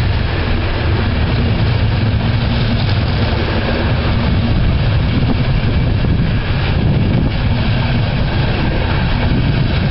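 Express passenger train's coaches rolling past on the track, a steady loud running noise of wheels on rails, heaviest in the low end. A faint steady hum underneath fades out about four seconds in.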